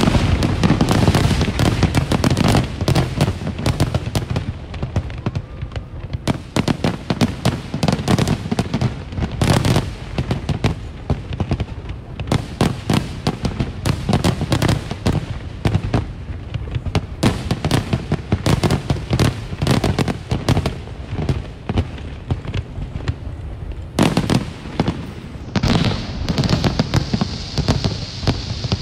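Aerial fireworks display: shells bursting in quick succession, a dense run of bangs and crackles with hardly a gap. A steadier hissing crackle joins near the end.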